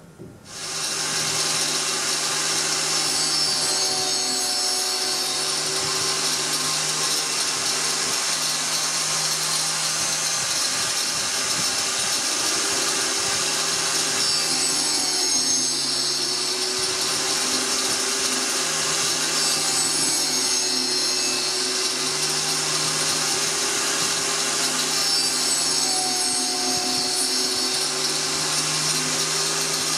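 Angle grinder with a cutting disc, mounted on a lathe's copying carriage, starting up about half a second in and then running steadily while it cuts a spiral flute into a turned wooden spindle; its motor note dips and rises a little as the load changes.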